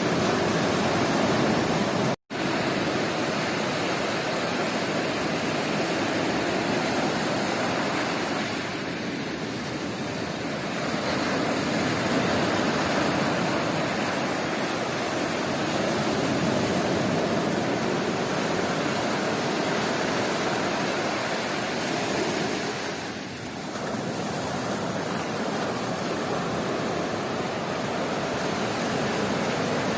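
Sea surf washing onto a beach: a steady rushing hiss that swells and eases slowly, broken by a momentary dropout to silence about two seconds in.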